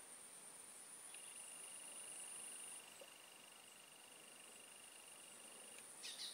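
Faint, steady high-pitched trilling of insects over near silence, joined by a second, lower steady trill from about a second in until near the end. A short burst of noise comes at the very end.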